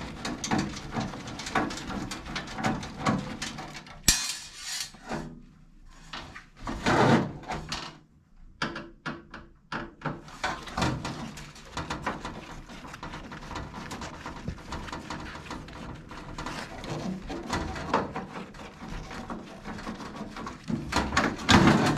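Clicks, knocks and rattles of the sheet-metal range hood and its parts being handled as the switch assembly is worked loose, with a quieter stretch about a third of the way in.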